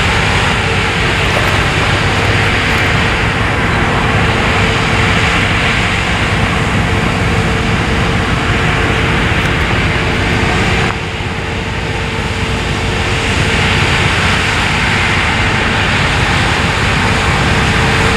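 Claas Lexion 600 TT combine harvester running steadily while cutting oilseed rape, a constant whine held over the machine noise. The sound drops suddenly about eleven seconds in and builds back up.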